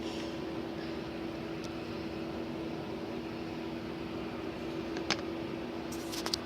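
Steady mechanical hum with a constant low tone, with a few short clicks, most of them near the end.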